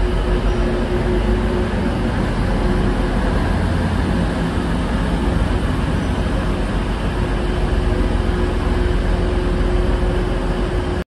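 TransPennine Express diesel train moving slowly through the station, its engines giving a steady low rumble with a constant hum. The sound cuts off abruptly near the end.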